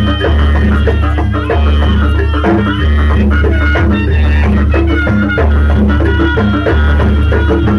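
Loud, amplified live jaranan music: drums and percussion over a heavy bass beat that returns about once a second, with melodic instruments above.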